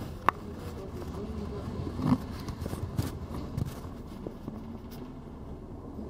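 Bus engine and road noise from inside a moving city bus: a steady low rumble with rattles, a sharp click about a third of a second in and a louder knock about two seconds in.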